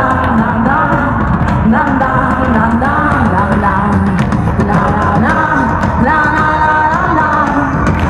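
A live rock band playing on stage, keyboards, drums and guitar, loud and continuous with a melody line over the top.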